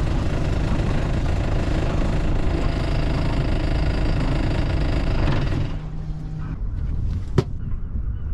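Sailboat's inboard engine running steadily while the boat comes alongside the pontoon. The sound drops away abruptly about two-thirds of the way through, leaving a quieter background with one sharp knock near the end.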